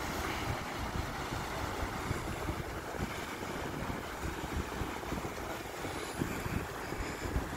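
Sea surf washing in over a rocky shore, a steady rushing hiss, with wind buffeting the microphone in irregular low rumbling gusts.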